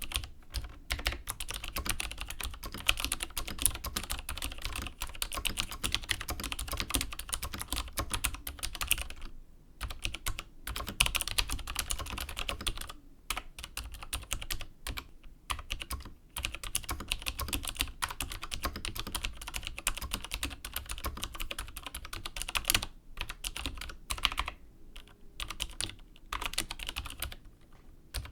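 Typing on a mechanical keyboard with vintage Cherry MX Dark Blue switches: a fast, irregular stream of keystroke clicks, broken by a few short pauses.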